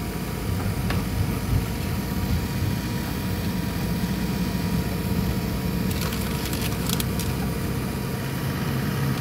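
Car engine and road noise heard inside the cabin while driving, steady throughout, with a few brief sharp clicks or rattles about six to seven seconds in.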